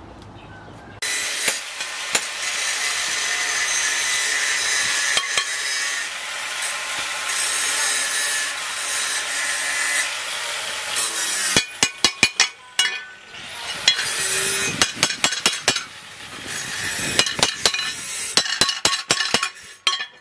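About ten seconds of steady, harsh, high-pitched rasping. Then a hand hammer strikes a piece of tractor-disc steel on an anvil, in quick runs of sharp blows with short pauses between.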